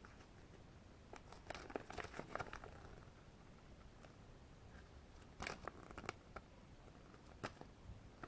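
Faint crinkling and rustling as packaging and a paper instruction leaflet are handled, in a few short scattered clusters with quiet between.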